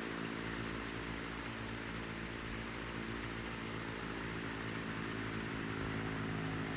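Hunter CG16 16-inch commercial-grade table fan running steadily: an even electric-motor hum under the rush of air from the blades.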